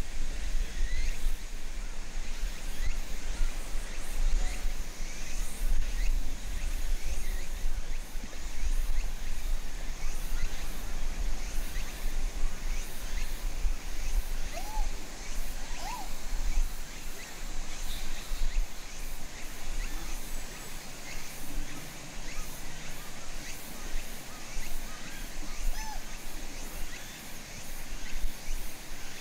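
Outdoor ambience: a steady low rumble with an even background hiss, scattered faint chirps, and two or three short rising-and-falling calls about halfway through and again near the end.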